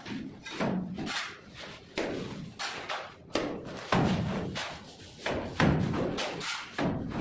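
Cement-and-sand mortar flung from a plastic shovel slapping onto a wall, a dull thud every half second to a second, irregularly spaced.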